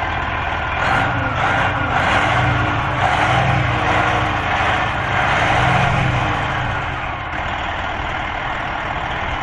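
Detroit Diesel Series 60 inline-six truck diesel running evenly with the hood open, just after its turbocharger was replaced. The engine sound swells slightly twice.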